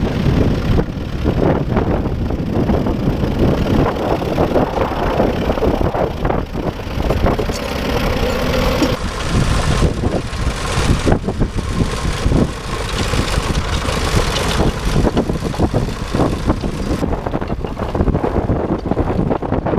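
Vintage tractor engine running steadily, with wind buffeting the microphone.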